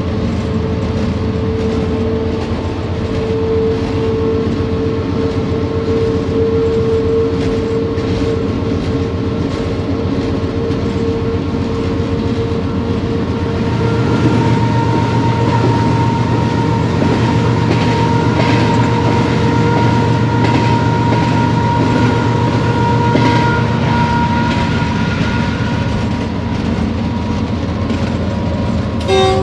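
Cab sound of a GE GEU-40 diesel-electric locomotive running at speed: a steady engine drone with wheels clicking over the rail joints. About halfway through the drone grows louder and a higher steady whine joins it, fading out a few seconds before the end.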